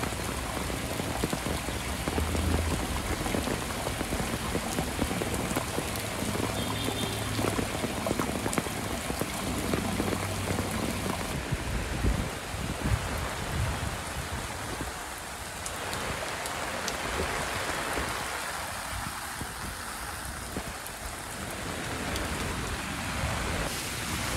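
Heavy rain falling on pavement, with water pouring from a downspout and running across a flooded sidewalk and street, a steady hiss of rain and running water.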